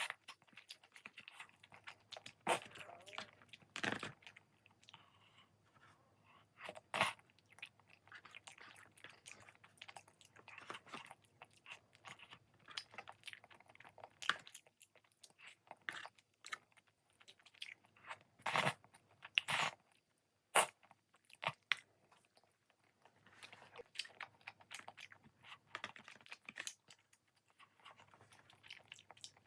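Close-up eating sounds of a person chewing rosé jjimdak, with irregular crunches and sharp mouth clicks.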